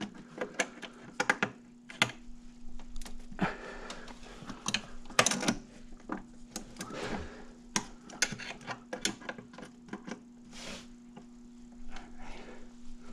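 Irregular clicks, knocks and clatter of hand tools and plastic and metal engine-bay parts being handled, with no steady rhythm, over a faint steady hum.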